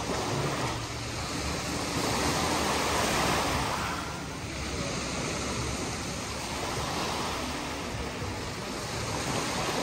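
Sea waves washing onto the shore: a steady rush of surf that swells about two seconds in and eases off again a couple of seconds later.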